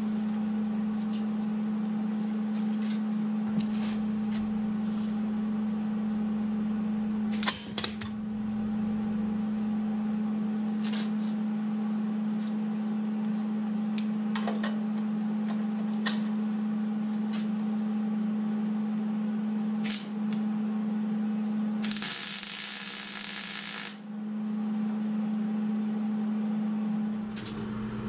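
A steady hum with scattered short clicks, then about two seconds of crackling MIG welding arc from a Millermatic 211 a little before the end.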